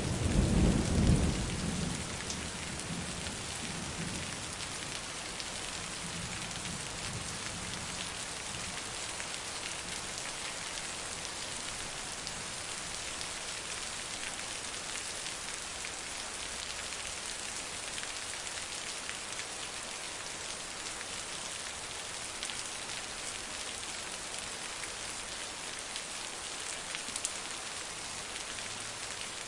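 Heavy rain falling steadily, with a low rumble of thunder right at the start that dies away within the first few seconds.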